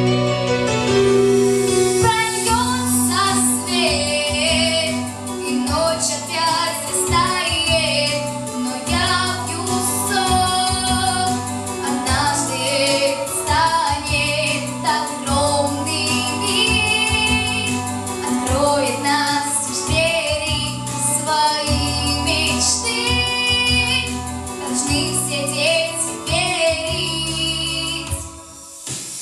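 A female voice singing a song with vibrato over an instrumental backing track with a steady bass line, with a short break in the music near the end.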